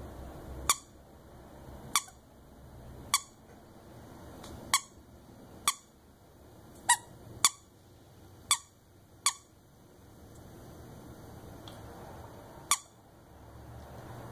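Squeaker in a plush toy bone squeezed by a whippet's bite: about ten short, sharp squeaks, most roughly a second apart, with a pause of about three seconds before the last one.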